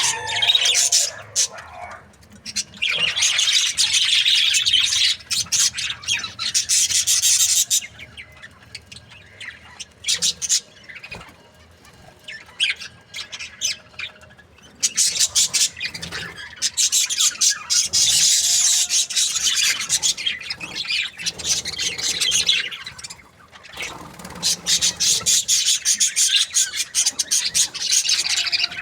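Budgies chirping and chattering in rapid, busy bouts of several seconds, with quieter stretches of scattered chirps between.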